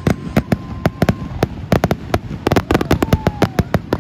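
Fireworks finale: a rapid, irregular barrage of aerial shell bursts, several sharp bangs a second, coming thicker in the second half.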